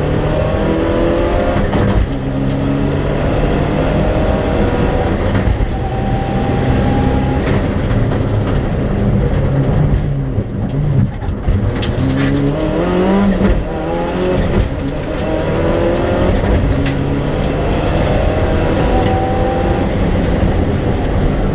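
Mitsubishi Lancer Evolution VIII rally car's turbocharged four-cylinder engine at full throttle, heard from inside the cabin, its pitch climbing through each gear and dropping at every shift. A few sharp clicks and knocks come through around the middle.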